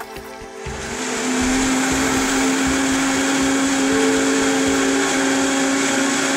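Vitamix blender switched on about a second in, its motor coming up to speed with a short rise in pitch, then running steadily at high speed. It is puréeing leafy greens, fruit and water into a smooth green drink.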